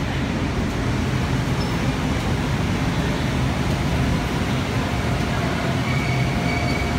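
Steady low hum and rush of an MBTA Green Line light-rail train standing at the platform with its doors open, its onboard equipment running. Faint thin high tones join in about five seconds in.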